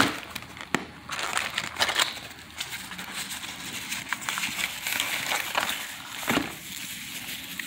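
Plastic and paper packaging crinkling and rustling as a small item is unwrapped from a little cardboard box, with scattered crackles and light knocks.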